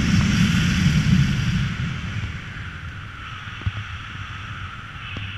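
Rushing air from paraglider flight buffeting the camera's microphone. It is a steady windy rumble that is loudest for the first two seconds, then eases.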